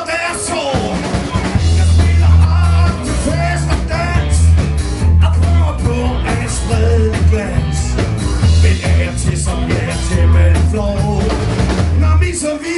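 Live rock band playing: a lead singer over electric guitars, drums and a bass line. The bass comes in about a second in and drops out shortly before the end.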